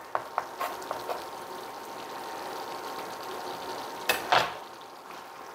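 Kitchen knife chopping soft roasted garlic on a plastic cutting board: a few light taps in the first second, then two sharper strokes on the board about four seconds in, over a steady hiss like a pot of chili simmering.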